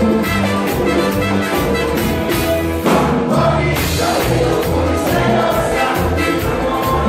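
Live cumbia band playing with a steady beat and a repeating bass line, with voices singing over it.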